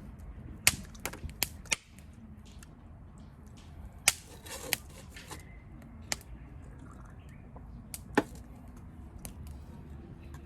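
Irregular sharp clicks and knocks of objects being handled: a quick run of five in the first two seconds, then single ones about four, six and eight seconds in, over a steady low background rumble.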